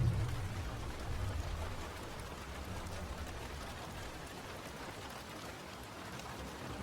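Steady rain falling, an even hiss of drops, with a low rumble of thunder dying away over the first few seconds.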